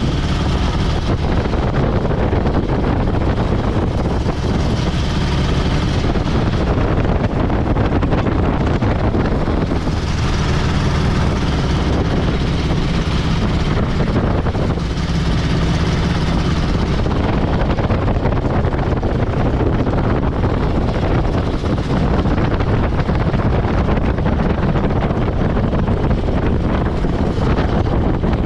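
Raj Hamsa X-Air Hanuman ultralight's engine and propeller running steadily as the aircraft taxis on the runway, heard from inside the open cockpit with wind rushing over the microphone.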